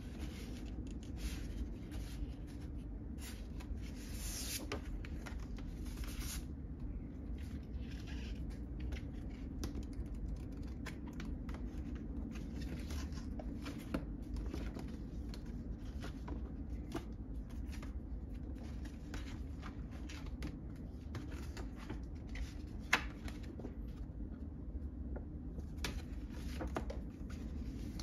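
Paper rustling and sliding as the pages of a glossy album photobook are turned and folded poster inserts are handled on a wooden table, with light ticks and one sharper tap late on, over a steady low room hum.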